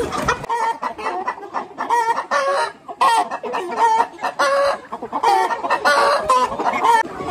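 A flock of chickens clucking and calling, with many short calls overlapping one another.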